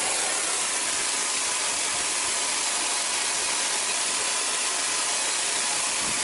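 Lit oxy-fuel torch flame hissing steadily.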